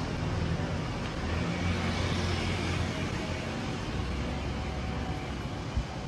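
Street traffic: a motor vehicle's engine rumbling past, with the noise swelling about two seconds in.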